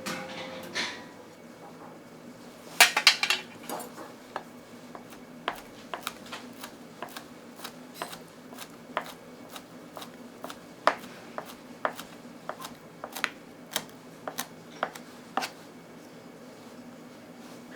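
Sharp clicks and knocks of kitchen utensils and cookware: a loud cluster about three seconds in, then single light ticks every half second to a second.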